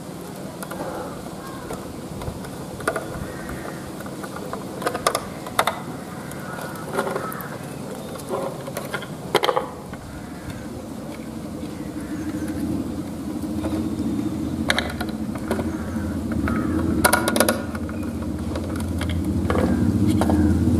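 Scattered clicks and knocks from a small screwdriver and a plastic charge-controller case being handled while wires are fastened into its screw terminals. Over the second half, a motor vehicle's engine rumble builds and becomes the loudest sound.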